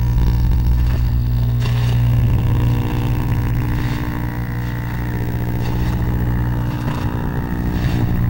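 Loud improvised electronic noise music: a steady low droning hum made of several held tones, crossed by short crackling noise bursts about every two seconds.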